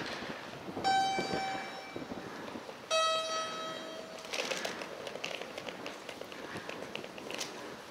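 Two-note descending electronic chime, a bell-like 'ding-dong' of the kind a public-address system sounds before an announcement: a higher note about a second in, then a lower note about two seconds later that rings a little longer. Terminal hubbub runs underneath, with light scattered clicks after the chime.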